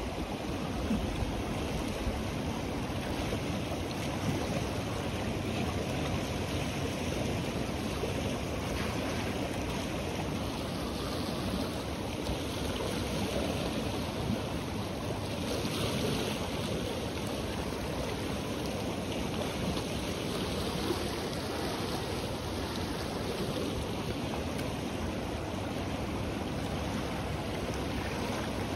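The Ganges river rushing past, fast and turbulent, a steady roar of churning water over rough standing waves. There is a brief brighter hiss about halfway through.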